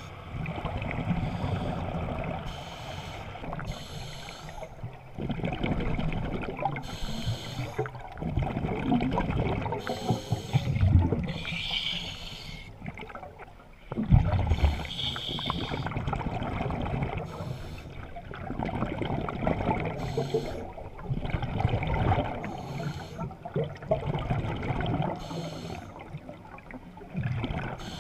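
Scuba regulator breathing underwater, heard through the camera's waterproof housing: swells of exhaled bubbles burbling every few seconds, with quieter gaps between breaths.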